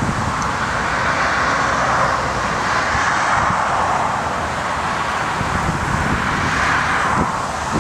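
Airliner jet engines giving a steady rushing roar, mixed with wind buffeting the microphone, with a couple of low thumps near the end.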